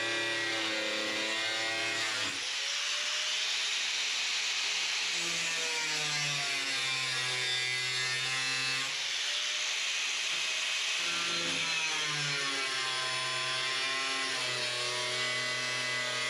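Handheld power tool cutting sheet steel on a car floor pan. The motor's pitch drops and a harsh hiss comes in each time the tool bears into the metal, twice, with the motor recovering in between.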